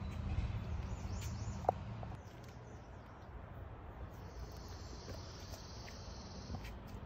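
Outdoor yard ambience: a low rumble that eases off about two seconds in and a single short chirp, then a steady high buzz lasting about two and a half seconds from about four seconds in.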